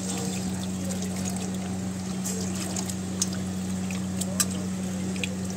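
Water pouring from a plastic bottle into a pot of raw chicken pieces as a hand rubs and washes the meat, with a few short sharp clicks. A steady low hum runs underneath.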